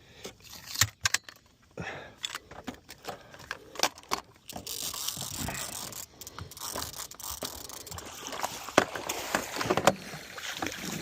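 Fishing reel being cranked to bring in a hooked catfish, its gears clicking and ratcheting, with irregular knocks and rattles.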